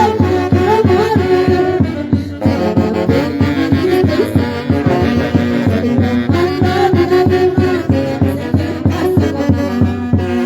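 Live band music from a Peruvian orchestra: wind instruments play a melody over a steady, regular bass beat.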